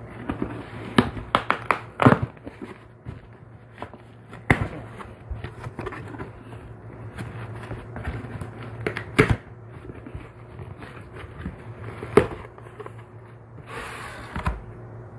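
A cardboard shipping box being forced open by hand: a run of sharp knocks, crackles and scrapes, thickest in the first couple of seconds and again around nine and twelve seconds in. A short rustling burst comes near the end, and a steady low hum runs underneath.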